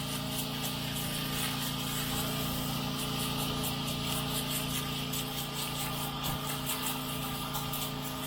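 Pressure-washing rig's engine running steadily under a continuous hiss of water spraying onto a house wall.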